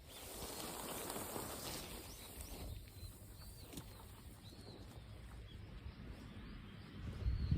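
Outdoor ambience of wind rushing, with a small bird chirping several times. A louder low rumble of wind comes in near the end.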